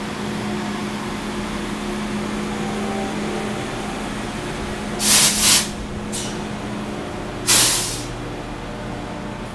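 Amtrak Acela trainset moving slowly past with a steady hum and rumble. There are sharp hisses of compressed air: two in quick succession about five seconds in, a faint one just after, and a loud one about two and a half seconds later, typical of air brakes venting.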